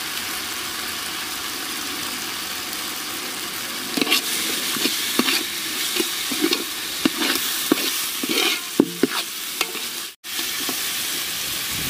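Spice paste sizzling as it fries in a large metal pot. From about four seconds in, a metal ladle stirs it, scraping and clicking against the pot. The sizzle cuts out for a split second near the end, then carries on.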